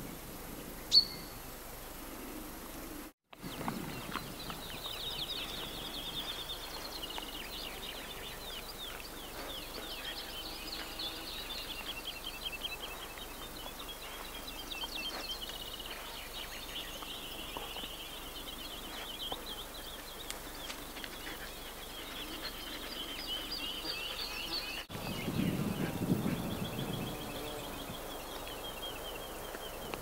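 Songbirds singing, one quick high trilled phrase after another. A short low rumble comes in briefly near the end.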